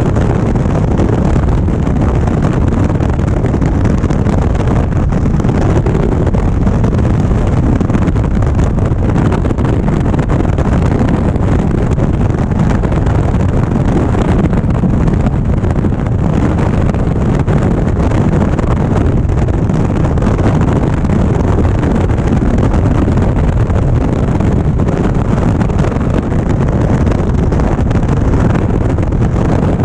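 Steady wind rush on the microphone while riding a 2016 Indian Springfield motorcycle at road speed, mixed with its V-twin engine and road noise. Loud and even, with no gear changes or revving standing out.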